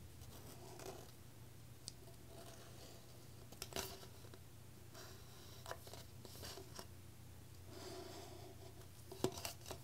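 Sharpie marker tracing on a plastic cup: faint, scattered scratchy strokes, with a few sharp clicks and taps as the cup is handled and turned.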